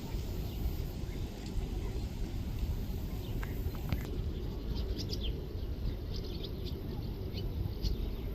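Small birds chirping in short high calls, sparse at first and more frequent from about halfway on, over a steady low rumble.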